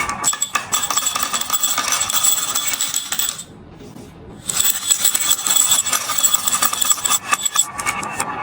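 Many marbles rolling and clacking down a marble run track: a dense, continuous rattle of small hard impacts with a bright ring. The rattle breaks off for about a second around the middle, then starts again.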